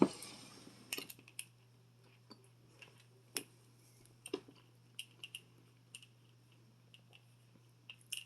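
Close-up chewing of a mouthful of seafood boil: scattered wet mouth clicks and smacks about a second apart, the loudest right at the start.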